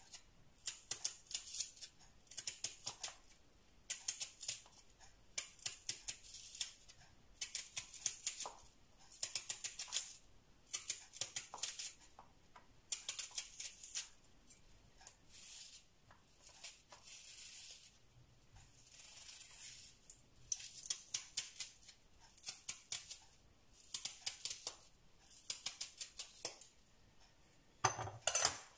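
Kitchen knife slicing an onion thinly on a plastic cutting board: runs of quick, crisp cuts with short pauses between them, and a louder knock near the end.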